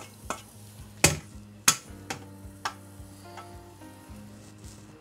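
Drained spaghetti sliding from a metal colander into a steel pot of hot sauce, which sizzles. The colander knocks against the pot rim a few times, loudest about a second in and again just after.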